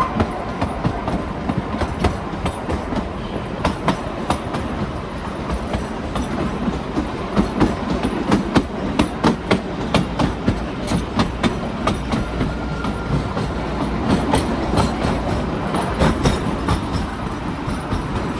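Kalka–Shimla narrow-gauge toy train running on the track: a steady rumble with the wheels clicking over the rail joints in quick, uneven clusters, busiest midway through.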